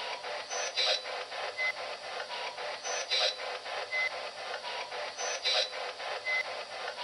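P-SB11 spirit box sweeping with its antenna off: choppy white-noise static in rapid even pulses, about four or five a second. A brighter short burst comes back about every two seconds, the same short stretch repeated, which the investigators caption as the word "sigan".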